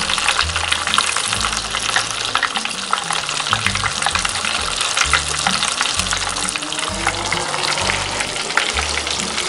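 Panko-breaded lionfish pieces deep frying in hot oil: a steady, dense crackle and sizzle of bubbling oil, full of fine pops.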